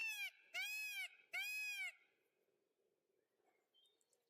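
Peacock calling three times in quick succession, each a loud, arched, wailing cry.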